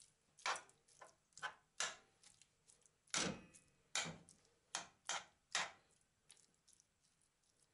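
Metal spoon knocking and scraping against a non-stick frying pan while raw chicken pieces are pushed around in it: about nine short, separate clacks over some five seconds, stopping about six seconds in.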